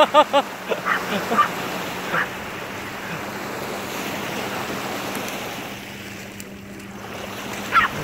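Small waves washing steadily onto a gravel shore, with a few short high-pitched calls in the first couple of seconds and again near the end.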